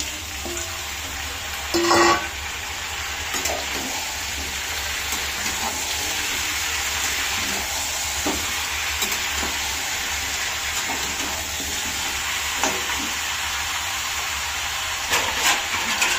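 Kadaknath chicken pieces frying in hot mustard oil with onions and potatoes in a steel kadai: a steady sizzle, with the steel ladle scraping and knocking against the pan as they are stirred. A loud metallic clang about two seconds in and a few more knocks near the end.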